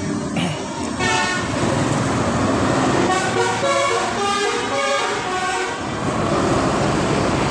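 A bus's 'telolet' multi-tone musical horn playing a run of stepped notes, starting about a second in and stopping about six seconds in, over the rumble of the bus engine.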